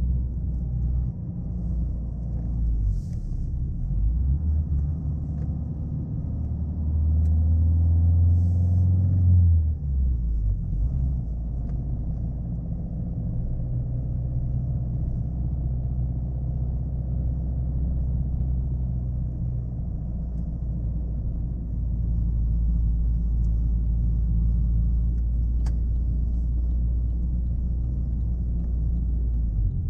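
Chevrolet Aveo hatchback driving: a steady low engine and road rumble. It grows louder and rises a little in pitch about seven seconds in, then drops back a few seconds later and holds steady.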